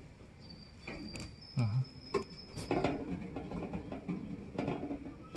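Scattered clicks and knocks from handling a pigeon and a syringe close to the microphone, the loudest a dull thump about one and a half seconds in. A faint, thin high tone runs through the first half.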